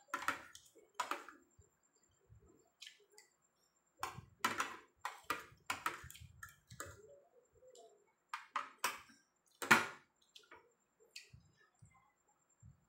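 A metal fork and spoon clink and scrape against a ceramic plate in irregular sharp clicks, the loudest about ten seconds in, with chewing between them.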